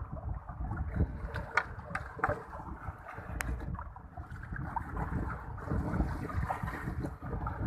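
Choppy sea water slapping against the side of a wooden boat, with wind buffeting the microphone and irregular knocks and clicks against the hull.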